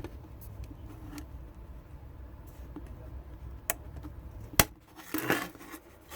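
Small plastic clicks and handling rattles of a Cherry MX-style keyboard stabilizer being fitted to the keyboard boards, with one loud sharp click about four and a half seconds in and a short clatter just after.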